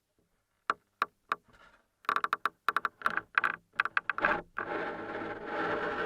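Creaking picked up through a piezo contact microphone: three separate clicks, then a rapid run of creaks, and from about four and a half seconds in a continuous rough creak.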